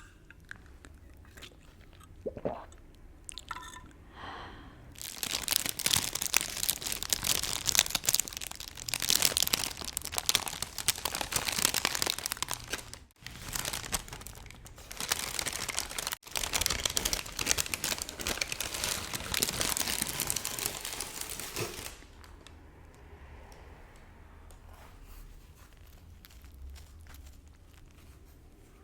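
Close-miked ASMR crunching and crinkling from eating during a mukbang: a dense crackle begins about five seconds in and runs for some seventeen seconds with two brief breaks, then drops to fainter, scattered sounds.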